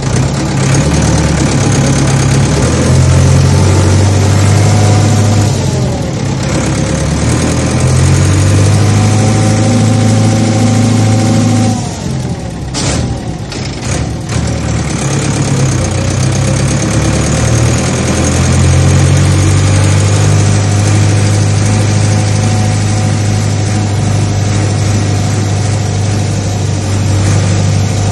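A large farm-machine engine running steadily, its pitch dropping and climbing back about six seconds in and again, more deeply, about twelve seconds in. A few sharp clicks come just after the second dip.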